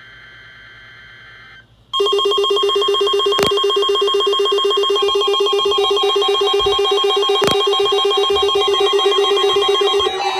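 Many weather alert radios and emergency alert receivers sounding their alarms together for a weekly test: a loud mix of repeating electronic beeps and ringing tones over a steady alert tone near 1 kHz, with two sharp clicks partway through. It starts about two seconds in, after a brief faint burst of electronic data tones and a short gap.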